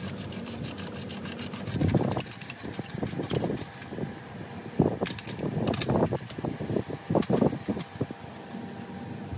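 Ratchet wrench clicking rapidly as a bolt is worked under the car, followed by irregular knocks and sharp metal clinks of tools against the exhaust fittings.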